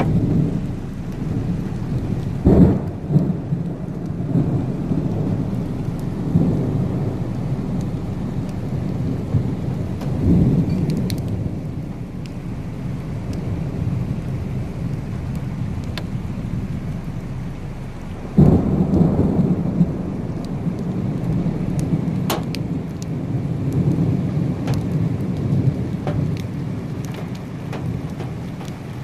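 Thunder rumbling through steady rain, with louder peals breaking in suddenly about two and a half seconds in and again about eighteen seconds in, each rolling away over a second or two.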